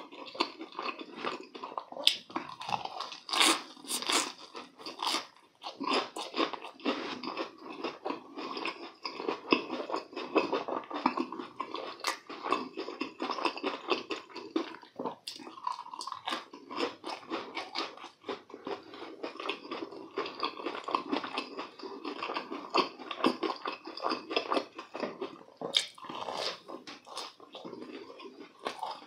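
Close-miked chewing of mouthfuls of deep-fried, breadcrumb-coated croquette and twisted doughnut, with crisp crunches of the fried crust now and then.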